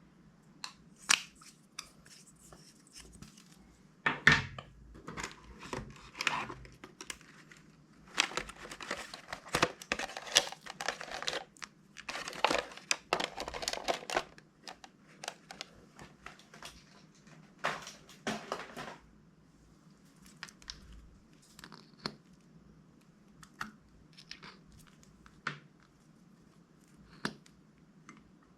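Plastic bags crinkling and rustling as they are handled and torn open, in irregular bursts with sharp crackles, densest in the middle of the stretch.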